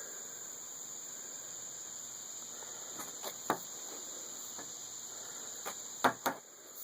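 Steady high-pitched insect chirring, with a few scattered short knocks or clicks in the second half, the two loudest close together near the end.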